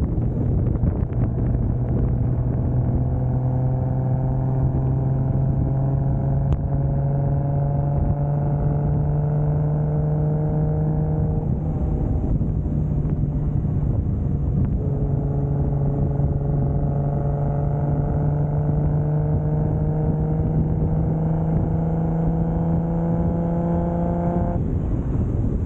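Toyota 2JZ turbocharged inline-six engine pulling under light throttle as the car gains speed, its pitch rising slowly and steadily, with road and wind noise underneath. The engine note thins out as the throttle eases about halfway through, picks up again a few seconds later, and thins once more near the end.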